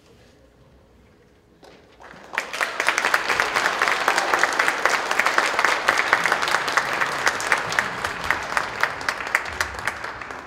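Audience applauding, beginning about two seconds in after a short pause and tapering off near the end.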